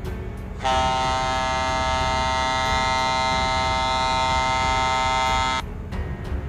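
A ship's horn sounding one long steady blast of about five seconds, starting about half a second in and cutting off sharply, over a low rumble of wind and engine noise.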